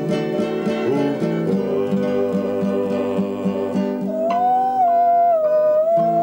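Acoustic guitar played with a steady, repeating plucked accompaniment. About four seconds in, a long held melody note comes in over it and bends slightly in pitch.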